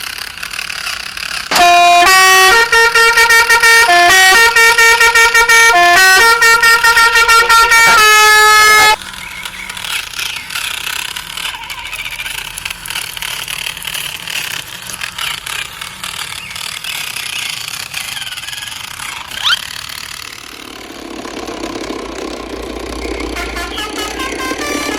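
RC truck horn sounding a loud multi-note tune that repeats, for about seven seconds, cutting off at once. Afterwards a rough, rattling vehicle running sound.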